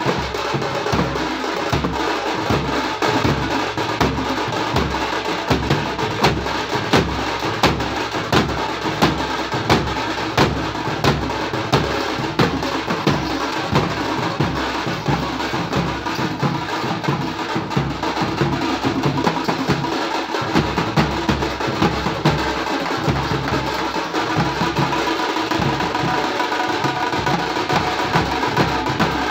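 A thappattam drum band playing: thappu (parai) frame drums struck with sticks give sharp cracks in a fast, steady rhythm over the thump of large bass drums.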